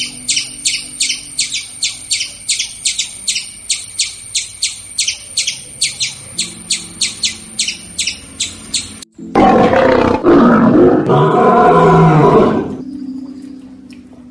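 A bird chirping in quick, evenly spaced calls, about three a second, over soft background music; about nine seconds in, a loud roar lasting about three and a half seconds, typical of a big cat such as a tiger.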